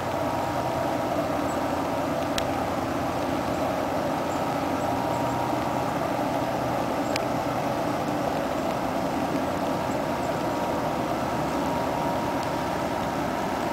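Steady mechanical drone of the steamship Montrealais, a steam-powered laker, as it moves slowly ahead, with a thin steady whine running through it and a couple of faint clicks.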